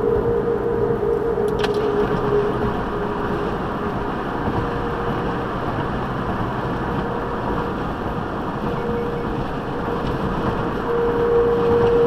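The Golden Gate Bridge humming in high wind: one steady, fairly high note, put down to the newly installed wind-reducing railings, heard from inside a car crossing the bridge over road and wind rush. The note fades in the middle and swells loud again near the end.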